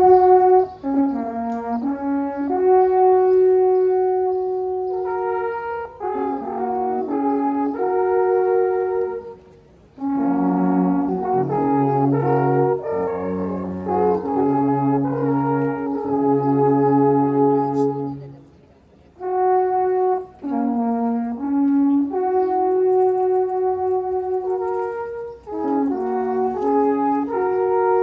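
Background music: a slow melody of held notes over lower sustained notes, in phrases that break off briefly twice.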